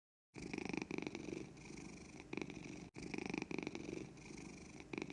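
Domestic cat purring close to the microphone, a fast rattle that swells and fades with each breath in and out.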